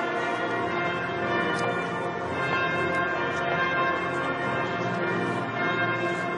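Church bells ringing, many overlapping tones sounding together without a break, heard from inside the cathedral.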